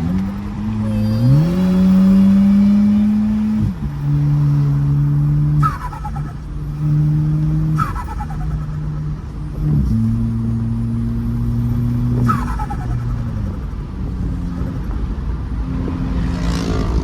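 Turbocharged VW Golf engine accelerating through the gears, its pitch climbing, then dropping at each upshift. A loud falling turbo flutter chirps at several of the shifts as the throttle closes.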